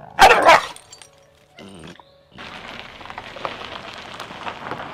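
A dog gives a loud, harsh bark near the start, with a short pitched sound a second or so later. From about halfway on there is a steady outdoor hiss with scattered light ticks.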